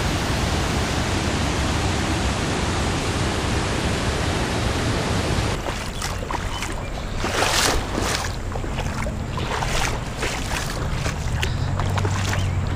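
Rushing water of a small river waterfall pouring over rock ledges, a steady roar that cuts off abruptly about halfway in. It gives way to quieter, uneven water sounds with a few short noisy bursts.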